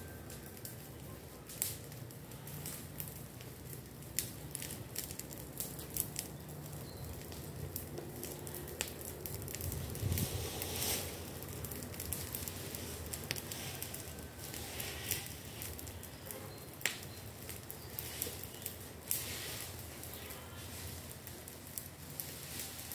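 Irregular crackles and snaps of dry twigs and leaves, scattered unevenly with a few sharper ones, over a steady low hum.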